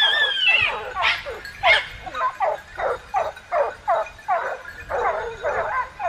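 A pack of hunting hounds yelping and baying: many short, falling cries from several dogs overlap at about three or four a second. It opens on a long, high held note that breaks off about half a second in.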